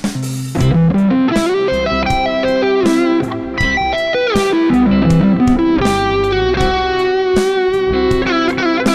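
Ibanez electric guitar playing a fast picked arpeggio lick over a C major chord: a C major arpeggio running into an E minor arpeggio superimposed on it, which gives a C major 7 sound, ending on longer held notes.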